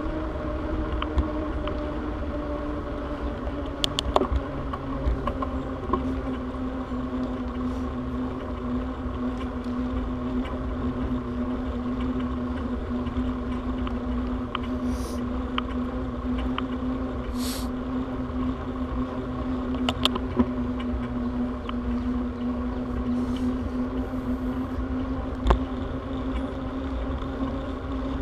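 Bicycle rolling steadily along an asphalt trail: a steady hum that drops slightly in pitch about two to three seconds in, over a low rumble of wind on the microphone, with a few sharp rattling clicks from bumps.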